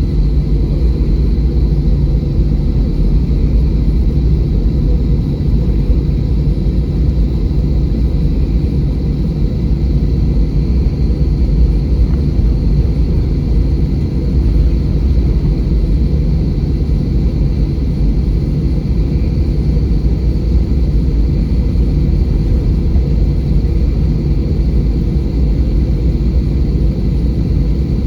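Steady low rumble of engine and airflow noise heard inside the passenger cabin of an Airbus A320, unchanging throughout.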